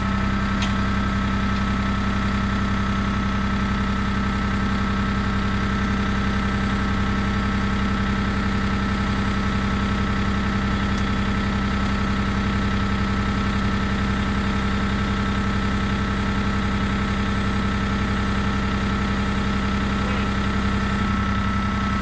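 A John Deere compact tractor's diesel engine running steadily, heard from the operator's seat, with a constant whine over the engine note.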